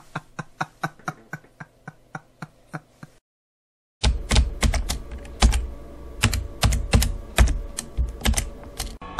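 Typing on a computer keyboard. First comes a run of light, evenly spaced keystrokes, about five a second, that fade away. After a short silence about three seconds in, louder, heavier typing follows, with deeper knocks under the clicks.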